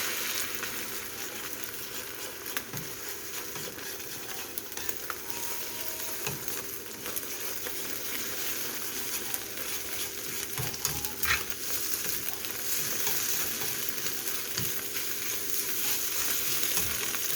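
Beaten eggs sizzling in hot cooking oil in a frying pan, being stirred, with the utensil knocking and scraping against the pan now and then.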